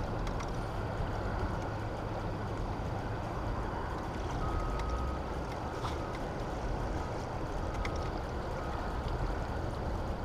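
Steady rushing of turbulent dam tailwater below the spillway gates, heavy in the low end, heard from a boat. A faint thin whine comes and goes in short dashes through the middle, with a few faint ticks.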